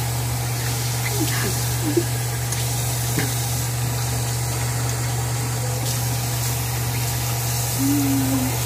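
Bathroom sink tap running steadily as water is scooped up in cupped hands, with a few short, faint vocal sounds from the girl.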